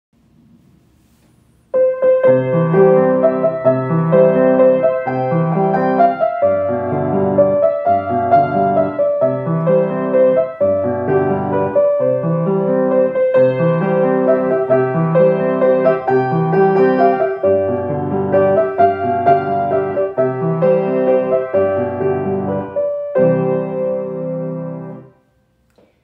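Grand piano played solo: a slow melody over low chords struck about once a second, starting about two seconds in and stopping about a second before the end.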